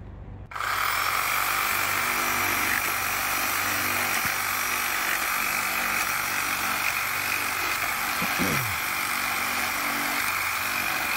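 Makita reciprocating saw fitted with a multi-purpose blade, starting about half a second in and cutting steadily through plastic driveway grid.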